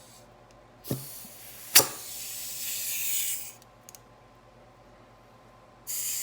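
Compressed air at about 40 PSI hissing from an air nozzle into the feed holes of a 4L60E forward input drum: one blast lasting about two and a half seconds with a sharp click near its start, then a second blast beginning near the end. The air check tests whether the drum's clutch circuits hold air; the worn air fitting leaks and adds hiss of its own.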